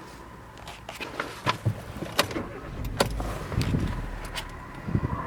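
A scatter of sharp clicks and a few soft knocks from hands working the controls and trim inside a parked car's cabin, over a faint steady hum.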